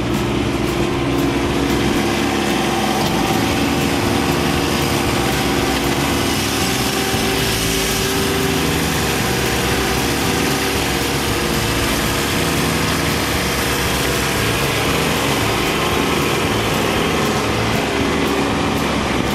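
Kubota B2601 compact tractor's three-cylinder diesel engine running steadily as the tractor drives its front loader into a pile of wood chips.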